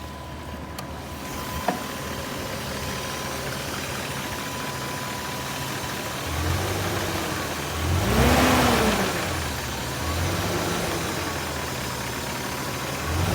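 BMW M62B44 4.4-litre V8 idling, with a sharp click about two seconds in and then three brief throttle blips, the middle one the biggest. The engine has a knock, which the owner takes for piston slap against the cylinder liner.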